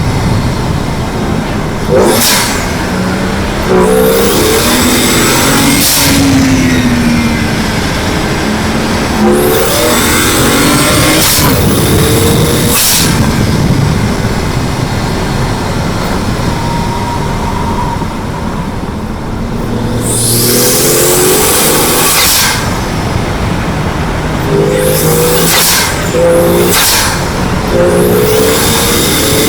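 BMW 335xi's twin-turbocharged N54 inline-six accelerating hard through the gears: the engine pitch climbs again and again with brief breaks at the shifts. Several bursts of loud hissing come in between the pulls.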